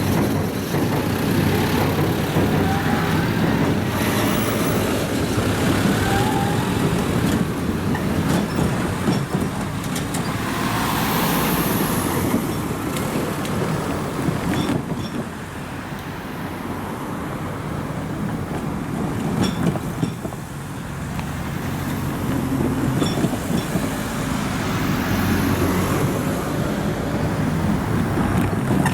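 Meitetsu electric trains running past at the junction's level crossing: a continuous loud rumble that eases a little about halfway through, then builds again near the end.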